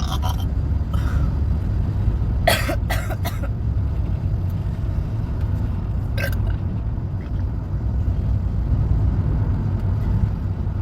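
A woman's short throat noises, like coughs or throat clearing: three in quick succession about two and a half seconds in and one more about six seconds in. A steady low rumble runs underneath.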